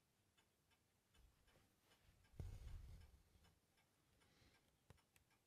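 Near silence: room tone with faint, regular ticking, and a soft low bump about two and a half seconds in.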